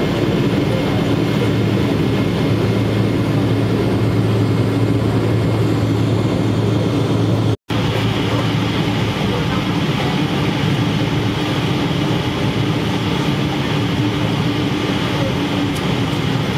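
Steady airliner cabin noise at the gate: an even rush of ventilation air with a low hum under it. It cuts out for an instant about halfway through and resumes.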